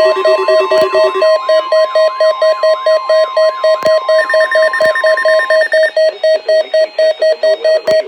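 NOAA Weather Radio's steady 1050 Hz warning alarm tone, sounding for the weekly test, with weather alert receivers beeping rapidly over it, about five or six beeps a second. The steady tone stops a little past the middle while the beeping keeps going.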